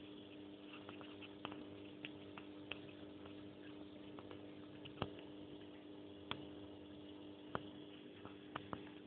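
Faint steady hum with a few sharp clicks scattered through it; the loudest click comes about five seconds in.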